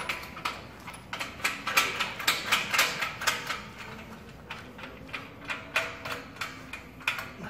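Light metal clicks and clanks, a few a second at uneven spacing, from working the locking pin and latch where the beam of a hydraulic log splitter meets its frame.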